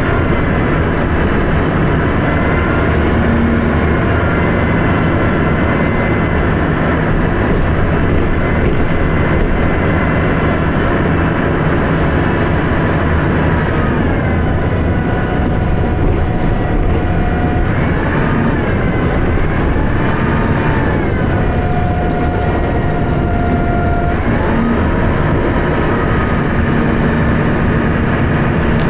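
Dennis Arrow bus under way: its diesel engine and driveline running with a steady rumble and a whine whose pitch drops about halfway, wavers for a few seconds and climbs again near the end as engine speed changes.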